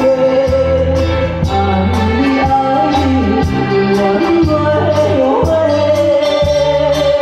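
A woman singing a melody into a microphone over amplified live band music with a steady bass-and-drum beat, heard loud through the concert's PA speakers from the crowd.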